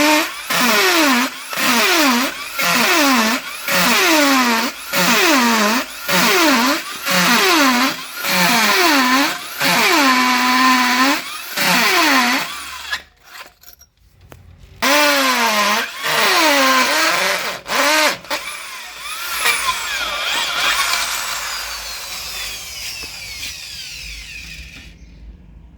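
Electric drill boring into concrete, run in short pulses about once a second, the motor's pitch dipping and recovering with each one. After a brief break it runs again, then a longer stretch with falling pitch slowly fades out shortly before the end.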